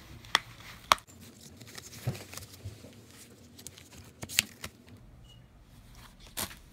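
A plastic Blu-ray case being handled and turned over: several sharp clicks and taps, with soft rustling in between.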